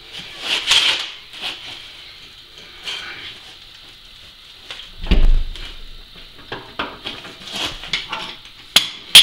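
Steel hand tools clinking and scraping as a wrench works on a threaded-rod foot under a milling machine base, with a dull thump about five seconds in and a sharp metal clink near the end.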